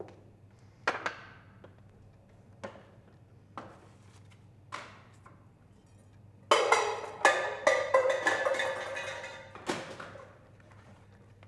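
A few separate knocks, then a loud clatter of small objects and tools falling onto a floor, with metallic ringing, that dies away over about three seconds.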